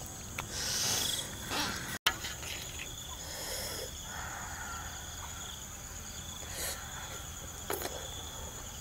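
Insects chirring steadily in grassland, a high-pitched drone with two tones, broken by a few brief soft rustles. The sound drops out for an instant about two seconds in.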